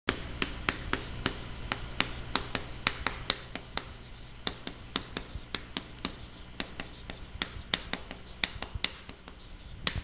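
Chalk writing on a chalkboard: a quick, uneven run of sharp taps and clicks, about three a second, as each stroke strikes the board. There are brief pauses just before the middle and near the end.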